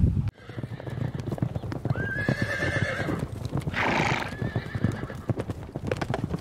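Horse hoofbeats clip-clopping, with a horse whinnying in wavering high calls about two seconds in and again around four to five seconds. A short breathy burst comes near four seconds.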